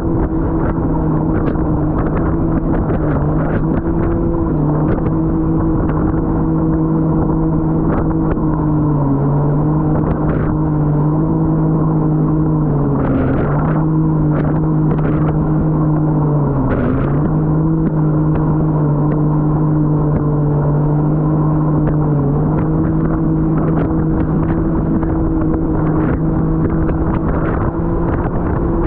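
Jet ski engine running at a steady pitch, dipping briefly in pitch several times as the throttle eases, over a wash of water and wind noise with scattered short sharp noises.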